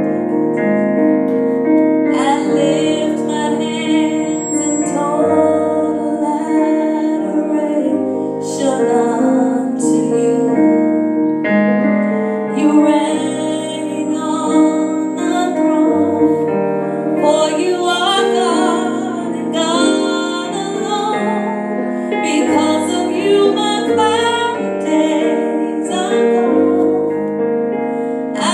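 Piano or keyboard playing sustained chords with a woman singing over it.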